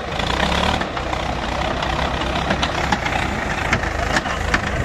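Diesel tractor engine running with a steady low rumble, sharp ticks scattered through it.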